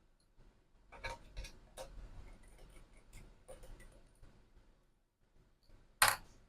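Scattered small clicks and taps of hand tools working inside an opened Mac Mini, with one sharp, louder click about six seconds in.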